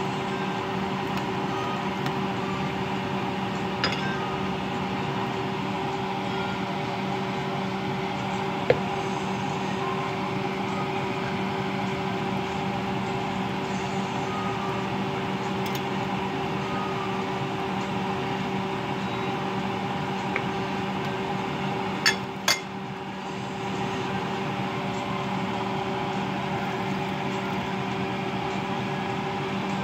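Steady mechanical hum of a kitchen fan running over the stove. A few light clinks of a metal ladle against the pot as the chili is stirred, with two sharper knocks close together about three quarters of the way through.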